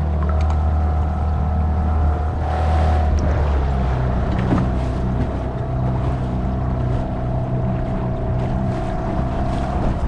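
Small boat's outboard motor running steadily, its note shifting about three and a half seconds in.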